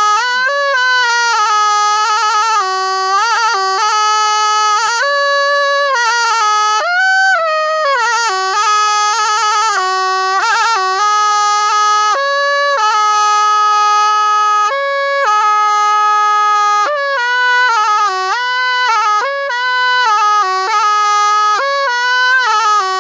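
Thai pi, a double-reed pipe, played solo in practice: one unbroken, nasal melodic line that slides and bends between notes with quick ornaments.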